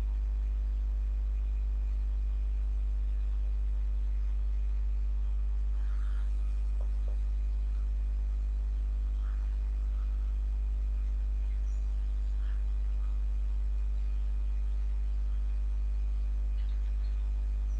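Steady low electrical mains hum. Faint short squeaks of a marker on a whiteboard come now and then.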